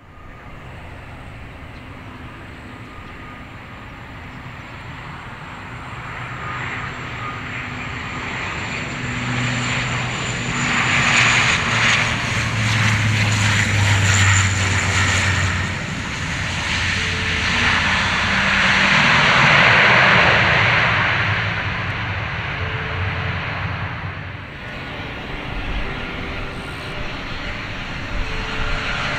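A Bombardier DHC-8 Q400 turboprop landing, with a low propeller drone that builds as it comes close and swells to its loudest with a broad rushing engine noise about two-thirds of the way in. About five seconds before the end there is a cut to the quieter approach noise of an Embraer E190 jet.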